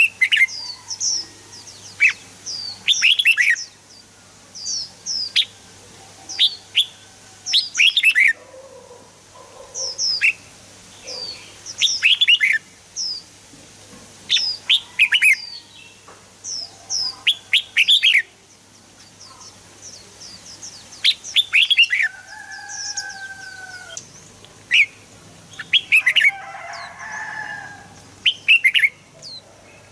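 Red-whiskered bulbul singing: quick phrases of short, sharp whistled notes that drop in pitch, coming in clusters every second or two. About two-thirds of the way through there is one longer, slightly falling whistle.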